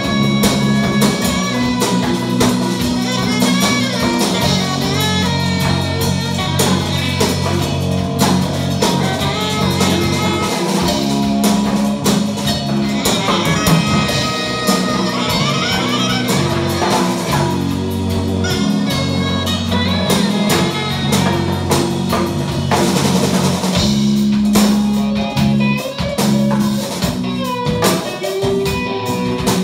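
A live band playing an instrumental in a blues-rock style, led by electric guitar over a drum kit, with a djembe and a saxophone in the mix.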